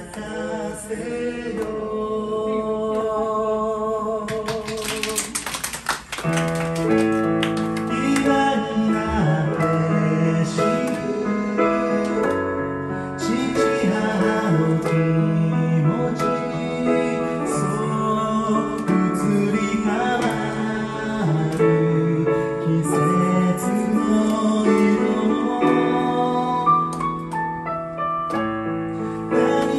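Singing with a held, wavering note over digital piano, broken about five seconds in by a short burst of hand-clapping; the piano then carries on in steady chords with the singing.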